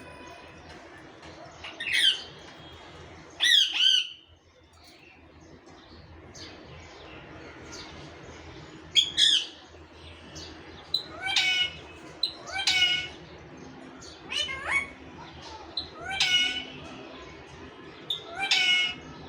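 Pet parrot squawking: about eight separate loud calls, two near the start, then a pause of several seconds, then a run of calls every second or two.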